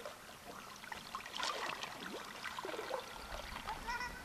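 Faint splashing and trickling of river water around a paddled kayak. A few short, faint pitched calls come near the end.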